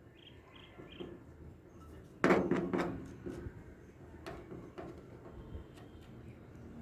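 A sudden knock with a brief ring, about two seconds in, followed by scattered light clicks and handling noises.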